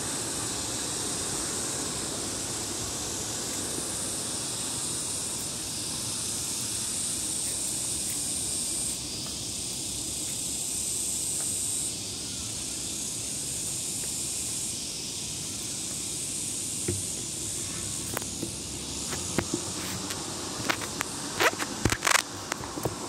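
Steady high buzz of insects over a low street rumble. In the last few seconds there is a series of sharp clicks and knocks from the phone being handled against a table.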